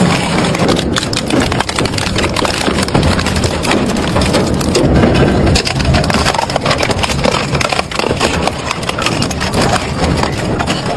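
Heavy wood-processing machine crushing and splintering wood, a continuous loud grinding thick with sharp cracks and snaps.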